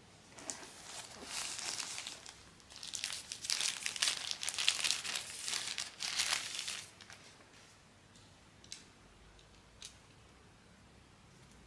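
Crinkling and rustling of a thin white wrapper as it is pulled off a small vinyl figure, in bouts for about six seconds, busiest in the second half. Two faint clicks follow as the unwrapped figure is handled.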